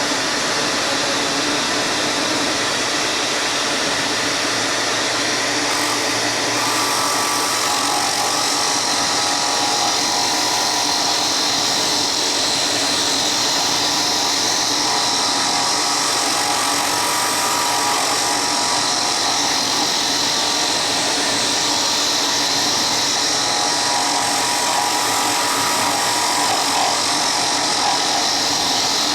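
An electric power tool running steadily without a break, a constant whine over hiss.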